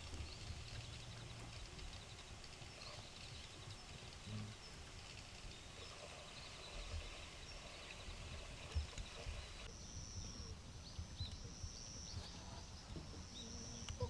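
Quiet outdoor ambience: a faint low rumble with soft high chirps and trills, which become steadier and more regular from about ten seconds in.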